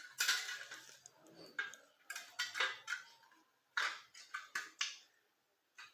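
Thin aluminium from a cut-up beer can being crushed and flattened: irregular metallic crinkling and clinks.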